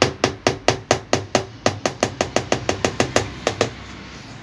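A rapid run of about twenty sharp knocks, about five a second and slightly quicker in the middle, stopping shortly before the end.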